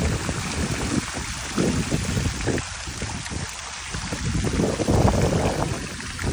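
Water falling from a tiered fountain's bowls and splashing into its basin, a steady splashing hiss, under a low rumble of wind on the microphone that swells and eases in gusts.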